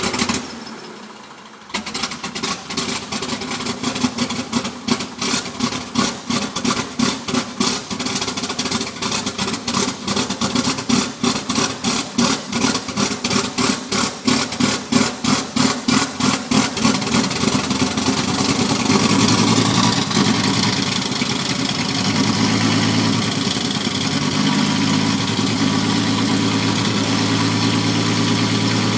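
Helio Courier's turbocharged Lycoming TIO-540 flat-six being hard-started: after a short pause the starter cranks it in a long run of even, rhythmic pulses for about fifteen seconds before the engine catches and settles into a steady idle for the last ten seconds or so.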